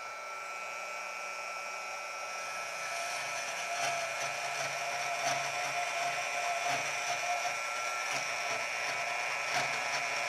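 Portable band saw running with a steady high motor whine, its blade cutting through a flat bar of CPM S35VN steel, the cutting noise growing fuller from a couple of seconds in as the bar is pushed into the blade. A faint tick recurs about every second and a half.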